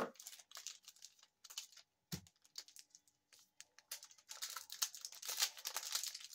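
A trading-card pack's plastic wrapper being handled and torn open: scattered small clicks and crinkles, then denser crinkling and tearing about four seconds in as the pack is opened.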